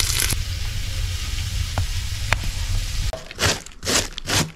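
Pork pieces sizzling as they fry in fat in a metal pot, a steady hiss. About three seconds in it gives way to a few short scraping strokes of a cabbage head being shredded on a hand slicer.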